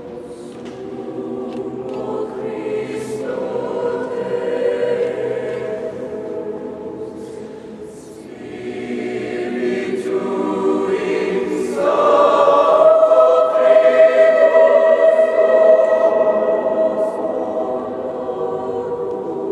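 Mixed youth choir singing sustained chords in a large, reverberant stone cathedral. The singing swells, eases about eight seconds in, then rises to its loudest about twelve seconds in.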